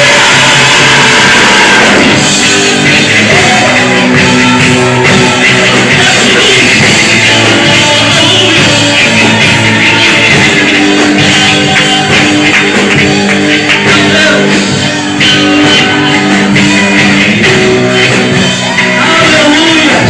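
Loud worship music from a church band, with long held chords and notes.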